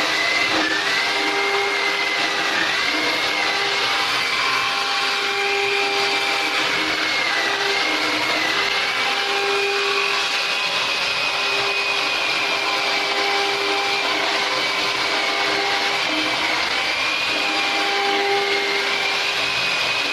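Sawmill machinery running steadily: a continuous motor hiss with a high whine that wavers slightly in pitch, and lower hums that come and go.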